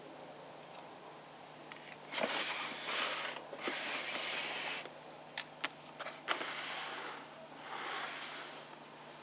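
A plastic drawer under a sewing-machine table being slid open and shut, several rough scrapes of about a second each, with a few sharp clicks and knocks between them.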